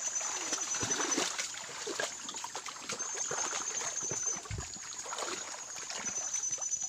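Footsteps and brushing through leafy undergrowth, with many irregular soft knocks and rustles, over the steady sound of a flowing creek.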